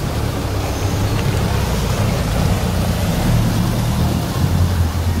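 Off-road 4x4's engine running with a steady low drone, with rumbling noise on top.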